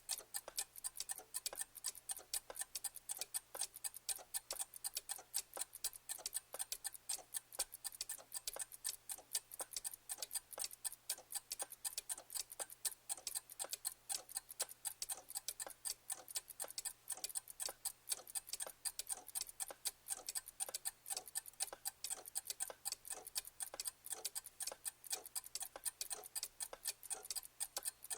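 Clock ticking steadily, with quick, even ticks, several a second.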